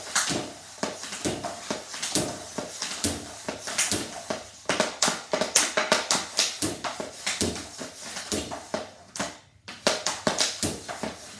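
Hockey stick and hard rubber puck on synthetic ice: a rapid, irregular run of sharp clacks and taps as the puck is passed into a bungee triangle passer and comes back onto the blade, several hits a second with a short pause near the end.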